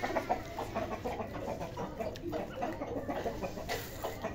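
A flock of bantam chickens clucking in short, irregular notes.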